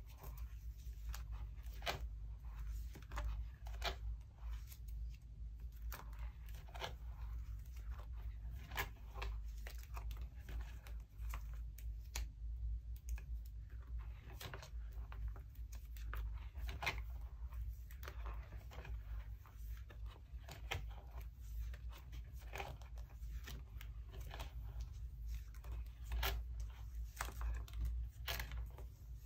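Plastic pocket sleeves in a ring binder crinkling and rustling as the pages are handled and turned, with irregular soft crackles and taps over a steady low hum.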